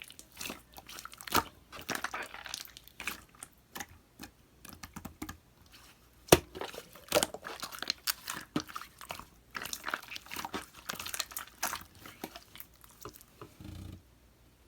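Clear slime being squeezed, stretched and folded by hand, with wet squelches and a steady run of small popping and clicking air bubbles; one sharp pop about six seconds in is the loudest.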